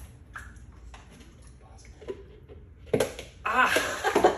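A large hollow plastic surprise egg snapping open with a sharp crack about three seconds in, followed by excited shouting and laughter.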